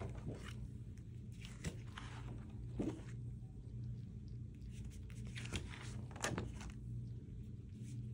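Faint crinkles and rustles of laminated plastic sheets in a ring binder being handled, a few separate crinkles spread through, over a steady low hum.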